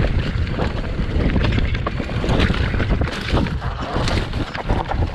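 Heavy wind buffeting the microphone over an irregular rumble from an enduro motorcycle riding a trail.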